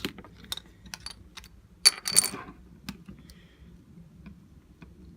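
Small metal tools and phone parts handled on a hard work surface: scattered light clicks and one bright metallic clink just before two seconds in, followed by a brief scrape.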